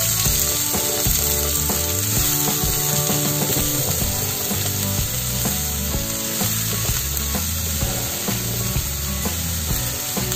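Hot coconut oil with mustard seeds sizzling steadily in a pan as chopped ivy gourd is added, under background music with steady, changing notes.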